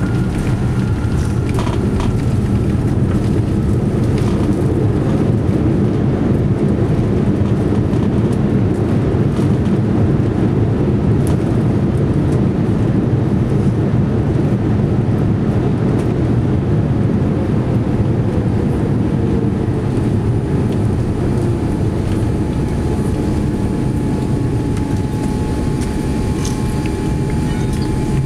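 Main-cabin noise of a Boeing 787-9 rolling on the ground just after landing: a steady, loud low rumble, with a faint tone that slowly falls in pitch about halfway through.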